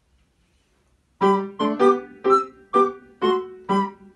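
Near silence, then about a second in a Yamaha upright piano starts playing repeated chords, about two a second, opening the accompaniment to a recorder piece.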